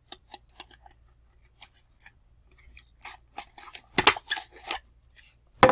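Stapler being squeezed to drive staples into the rim of a styrofoam bowl: small clicks and rustles as it is positioned, then loud staple snaps about four seconds in and again near the end.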